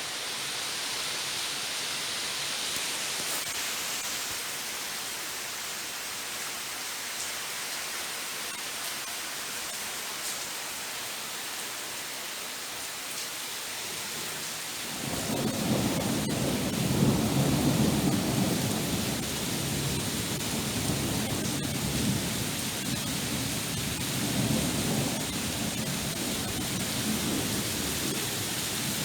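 Steady hiss of falling rain; about halfway through, a long low rumble of thunder rolls in and goes on, swelling and fading a few times.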